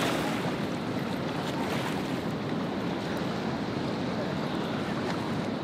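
Steady rush of a fast-flowing river, an even wash of water noise with no breaks.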